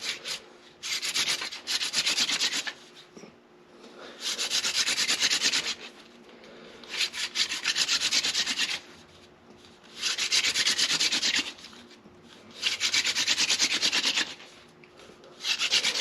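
Hand-drill friction fire: a seepwillow spindle twirled between the palms, grinding into a sotol hearth board. It makes a dry, fast rasping in runs of about two seconds, six of them, with short pauses between.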